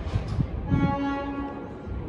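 New York City subway train's horn sounding one steady blast about a second in, over the low rumble of the train on the track.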